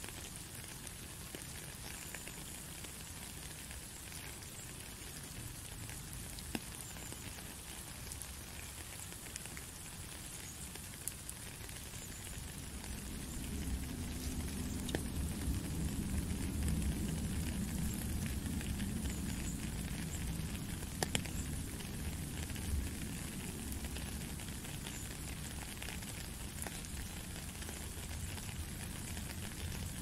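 Steady rain falling on a puddle and wet gravel: a fine, even hiss with scattered drip ticks. A low rumble swells in about halfway through and stays.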